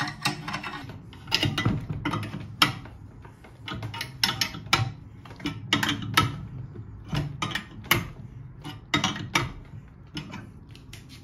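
Steel wrench turning the bolts of a homemade puller that presses a lathe chuck off an electric motor's shaft: irregular metal clicks and scraping of steel on steel, one or two clicks a second.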